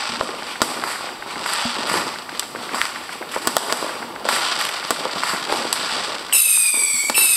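Fireworks and firecrackers going off: a dense, steady crackle of sharp pops and bangs. Near the end come two loud, shrill whistles from whistling fireworks, each sliding slowly down in pitch.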